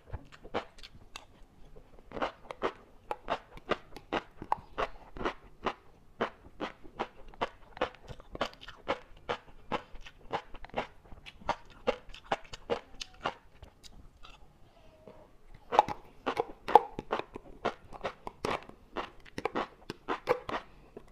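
Close-up chewing of crunchy food, here large-grain flying fish roe, with crisp crunching about two or three times a second. There is a brief pause about two-thirds of the way through before the chewing resumes.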